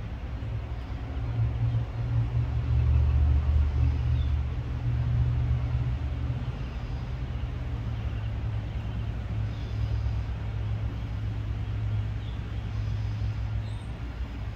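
Low steady engine rumble, like a vehicle idling, swelling louder for a few seconds about two seconds in, then settling back.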